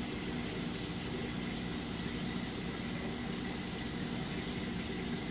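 Steady low hum with an even hiss over it, from saltwater aquarium pumps and circulating water.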